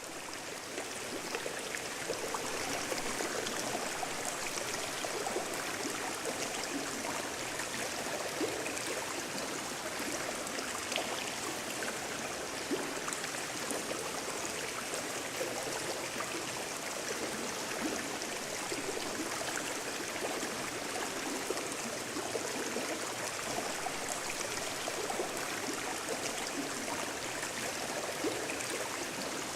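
Water of a stream flowing in a cave: a steady rushing and gurgling with small splashes, fading up over the first couple of seconds and then holding even.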